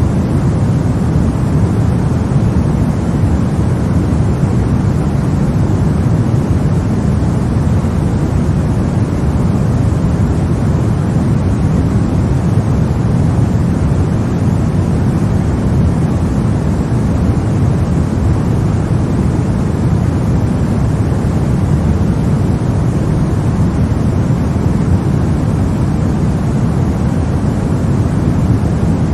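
Continuous white-noise track for lulling babies to sleep: an even, unchanging hiss weighted toward the low end, so it sounds deep and soft.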